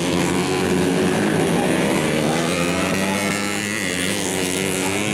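Engines of standard underbone-class ('bebek') race motorcycles running on a dirt grasstrack, their revs rising and falling steadily as the bikes ride the track.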